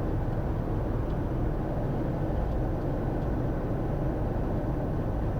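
Steady cockpit noise of a Bombardier Challenger 350 business jet on approach: a constant rush of airflow over the airframe with the engines running.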